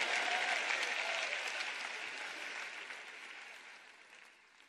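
Audience applauding, a dense patter of clapping that dies away gradually to nothing near the end.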